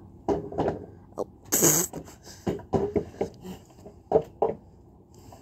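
A child's voice making short wordless vocal noises, with one sharp breathy burst about one and a half seconds in.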